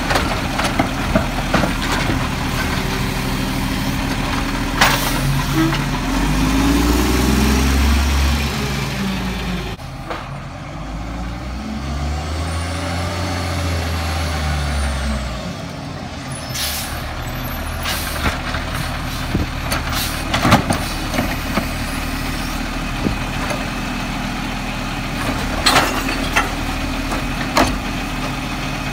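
Diesel engine of an MR AutoReach automated side-loader garbage truck idling, then revving up twice as the truck pulls ahead to the next carts. Air-brake hisses and several sharp bangs come as the hydraulic arm grabs and dumps a recycling cart.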